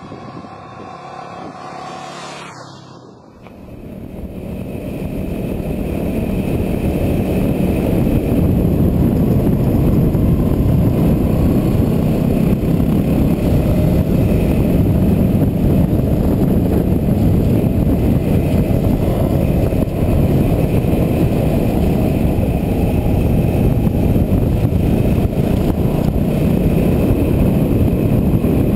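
Yamaha WR250R single-cylinder dual-sport motorcycle under way, its engine buried in heavy wind rush on the microphone. The rushing noise builds over several seconds as speed rises, then holds steady and loud.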